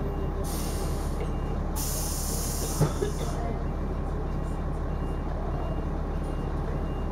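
Dennis Arrow double-decker bus heard from inside, its engine giving a steady low drone. Two hisses of compressed air come from the air system, one about half a second in and a longer one from about two to three seconds in, with a single knock near three seconds.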